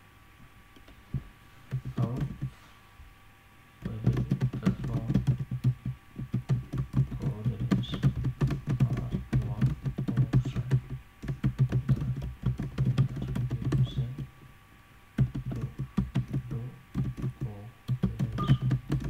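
Computer keyboard typing in quick runs of keystrokes: a short burst about two seconds in, then steady typing with a brief pause about three quarters of the way through. A faint steady electrical hum sits underneath.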